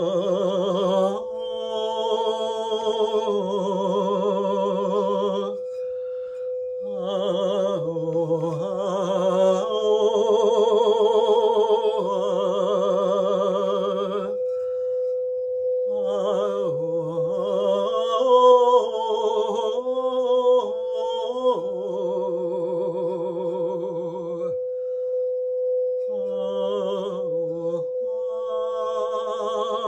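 Wordless soul singing in long held notes with a wavering vibrato, breaking off every few seconds, over the steady ringing tone of a singing bowl.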